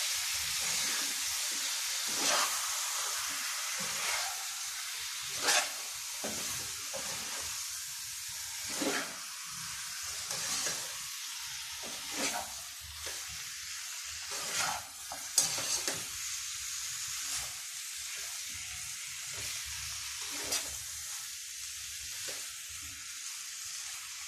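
Chicken pieces and potatoes frying in biryani spice paste in a non-stick wok: a steady sizzle, with a metal fork stirring and scraping against the pan in short strokes every second or few.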